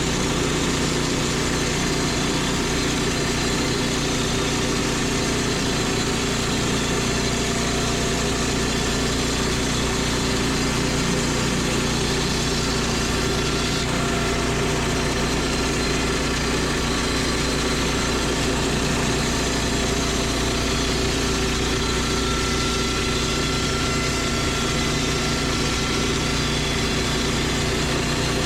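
Woodland Mills portable bandsaw mill's gasoline engine running steadily at a constant speed as the mill resaws a 2x8 lengthwise into battens.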